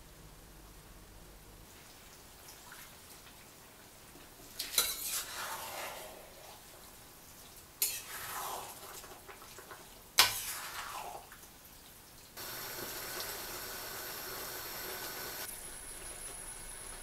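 Spaghetti being tossed and stirred through a thick tomato sauce in a stainless steel sauté pan. A utensil clacks sharply against the pan three times, each clack followed by a wet swishing through the sauce. After that comes a steady sizzle of the simmering sauce.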